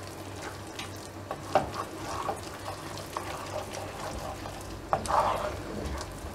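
Wooden spoon stirring and scraping a thick flour paste in a frying pan over a low flame, with light knocks of the spoon against the pan now and then, the loudest about five seconds in.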